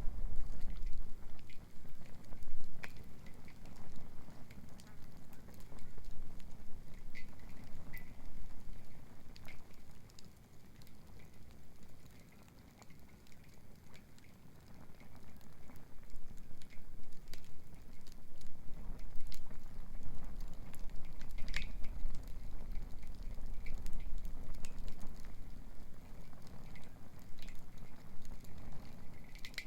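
Wood fire crackling, with scattered sharp pops and snaps, over a low rumble that swells and fades and eases off for a few seconds midway.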